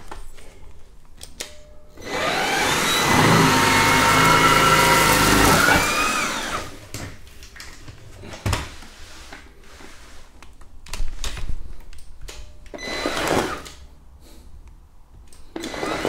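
Xiaomi G11 cordless stick vacuum running over a rug with its powered roller brush. About two seconds in it gets much louder for about four seconds, a rushing whine whose pitch rises slightly before dropping back, then it runs quieter with shorter loud swells later on.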